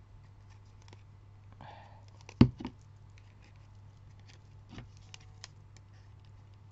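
A plastic glue bottle set down on a cutting mat with one sharp knock about two and a half seconds in, followed by a smaller tap, among light rustles and clicks of paper being handled. A low steady hum runs underneath.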